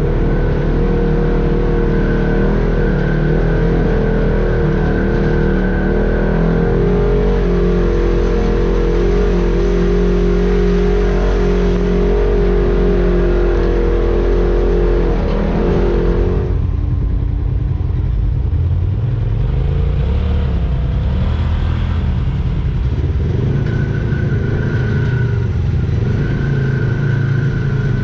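Off-road vehicle engine running under throttle while riding, its note shifting up and down. About sixteen seconds in the higher part of the sound drops away, leaving a lower, uneven engine note.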